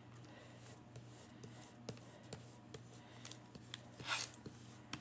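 Faint light clicks and ticks from handling a diamond painting canvas and its plastic cover during an adhesive test, with a short soft rustle about four seconds in, over a faint steady low hum.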